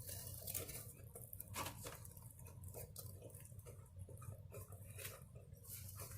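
Faint chewing and mouth sounds of someone eating a taco, with irregular small clicks and smacks.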